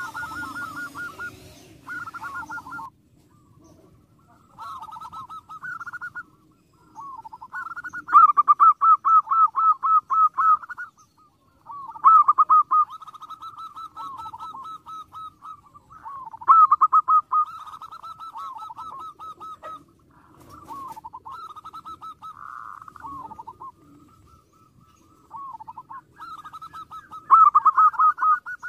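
Zebra dove (perkutut) singing: repeated phrases of rapid staccato coos, each a few seconds long with short pauses between, some phrases much louder than others.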